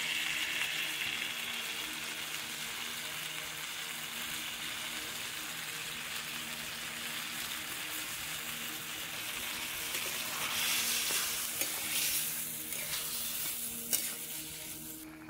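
Fish curry sizzling in a metal kadai over a wood fire. From about ten seconds in, the sizzle grows louder as a metal spoon stirs it, with a few sharp clicks of the spoon against the pan near the end.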